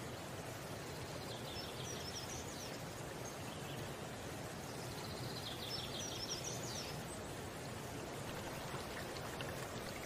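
High-pitched bird calls: two quick rattling series of short notes, one about a second and a half in and another about five seconds in, over a steady background hiss.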